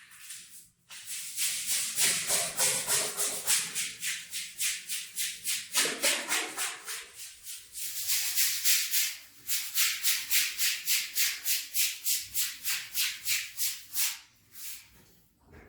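Stiff brush scrubbing a wet rug in fast back-and-forth strokes, about four a second, with a couple of short pauses.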